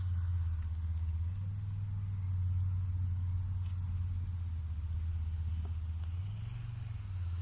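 A boat's motor running steadily with a low hum, its pitch stepping up briefly near the end.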